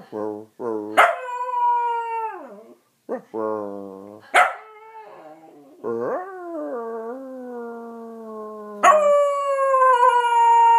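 Long-haired dachshund howling: a string of drawn-out howls, each sliding down in pitch as it fades, after a few short yelps at the start. The loudest, highest howl begins about a second before the end.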